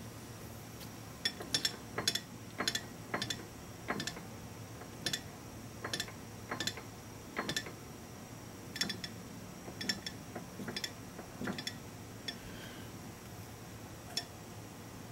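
Irregular light metallic clicks and ticks, some in quick pairs, from a manual lathe's handwheels and slides being worked by hand as the tool is stepped along a contour, over a steady low hum.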